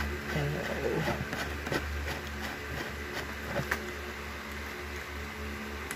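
Faint plastic clicks and rubbing as the bottle is refitted onto a cordless nano spray gun, over a steady low hum.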